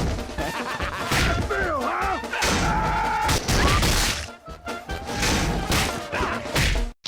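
Music mixed with a flurry of crashing and whacking impacts, like a slapstick brawl, with some sliding pitched sounds among them; it cuts off abruptly near the end.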